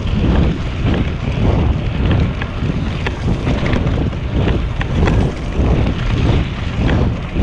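Wind buffeting a handlebar-mounted GoPro's microphone on a bicycle moving at speed, a loud steady rush. Light ticks are scattered through it as the tyres run over fallen leaves on the path.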